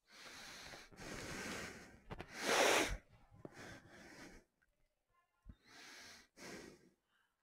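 Short breathy noises, a person breathing and sniffing close to the microphone, about six in all, with the loudest about two and a half seconds in.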